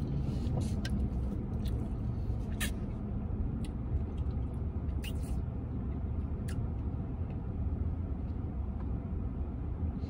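Steady low rumble of an idling vehicle engine, heard inside a pickup truck's cab, with a few brief scattered clicks.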